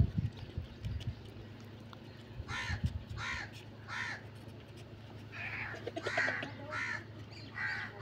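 Crows cawing: a run of short, harsh calls, about eight of them, starting about two and a half seconds in.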